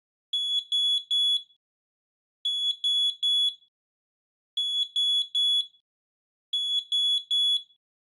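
SALUS SD600 smoke detector sounding its high-pitched alarm in the temporal-three pattern: four rounds of three short beeps, each round about two seconds after the last. This is the signal that smoke has been detected.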